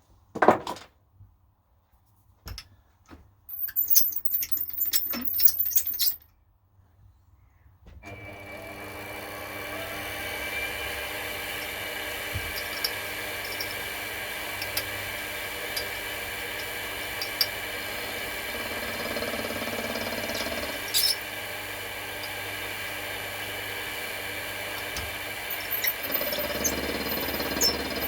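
A few knocks and clicks of handling, then about eight seconds in a mini milling machine's motor starts and runs steadily with a whine.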